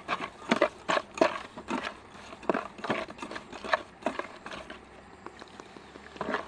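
A hand working inside a metal pot: irregular clicks, knocks and light rustling, busy at first, thinning out about four seconds in, then picking up again near the end.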